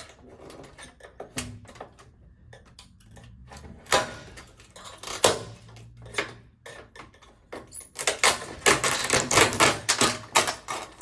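Clicking and clattering of thin metal LED backlight strips being pulled off a television's metal back frame and handled, with a dense run of clicks about eight seconds in.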